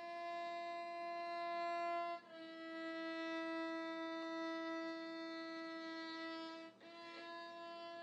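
Solo violin playing slow, long held notes, moving slightly up in pitch about two seconds in and changing note again near seven seconds.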